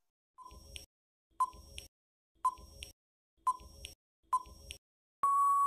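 Countdown timer sound effect: five soft ticks about a second apart, each a short blip followed by a click, then a steady high beep lasting about a second near the end, marking time up.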